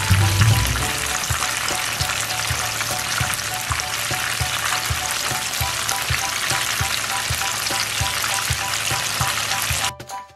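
Lumpiang shanghai spring rolls deep-frying in hot oil in a pan: a steady, dense sizzle and crackle that cuts off suddenly near the end.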